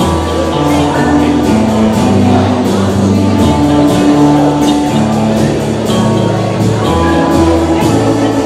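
Live band playing an instrumental passage: electric bass, keyboard and electric guitar over a drum kit keeping a steady beat.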